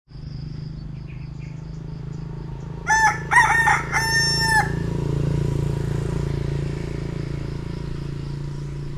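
A rooster crowing once, about three seconds in: a few short notes and then a long held one that drops at the end, over a steady low hum.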